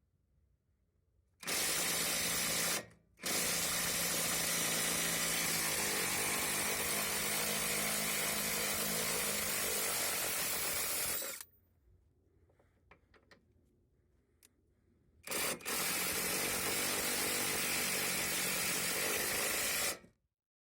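Brushless cordless half-inch impact wrench (AutoJare B1803) running in three trigger pulls: a short one, a long one of about eight seconds, and another of about five seconds, each starting and stopping abruptly.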